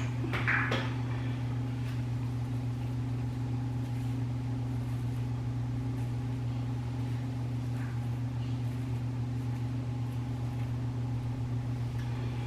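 Steady low electrical hum of a running motor or appliance, with a brief rustle about half a second in.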